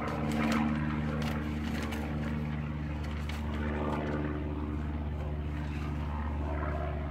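A motor running at a steady, unchanging pitch, like an idling engine.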